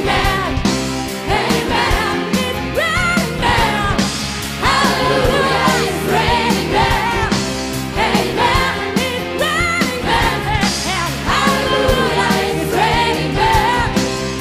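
Live pop-rock performance: a female lead singer over a band of drums, bass, electric guitar and keyboards, with a steady driving beat.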